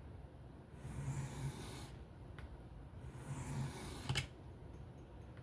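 Steel knife blade drawn freehand across a whetstone: two long gritty scraping strokes, each about a second, with a sharp click as the second stroke ends.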